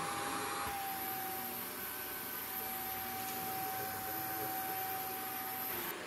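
Shark upright vacuum cleaner running steadily, a motor hum with a high steady whine.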